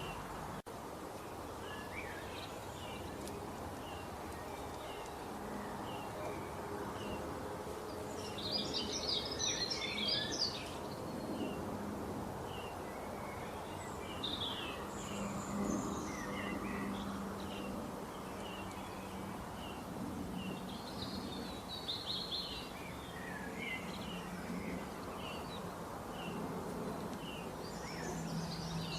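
Small birds chirping: short high chirps repeated about every half second, with several louder bursts of rapid twittering, over a steady background hiss.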